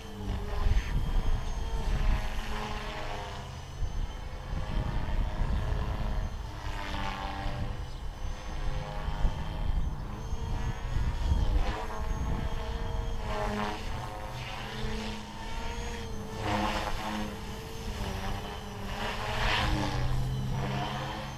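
MSH Mini Protos RC helicopter flying, its rotor and motor whine shifting up and down in pitch as it manoeuvres and passes overhead, over a low rumble.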